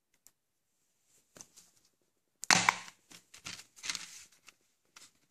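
Plastic Blu-ray case snapped open, with one sharp loud snap about halfway through, amid scattered clicks and rustling of the plastic case being handled.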